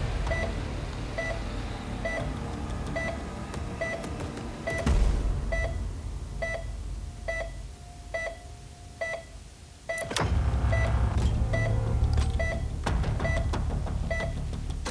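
Medical equipment beeping steadily in an operating room, a short two-tone electronic beep just under once a second, over a low rumbling drone. About ten seconds in, a sudden hit lands and the low drone grows much louder while the beeping goes on.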